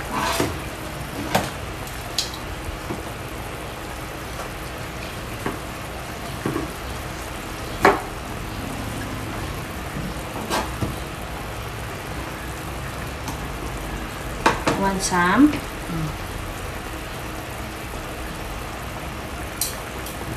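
Pot of squash simmering steadily on the stove, with occasional sharp clicks and scrapes of a knife and fork on a cutting board as boiled chicken is shredded.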